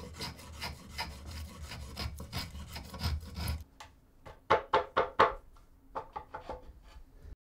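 Wood being rasped by hand with a run of scraping strokes, about three a second. About halfway through the strokes stop briefly, then four louder, sharper strokes follow, then softer ones.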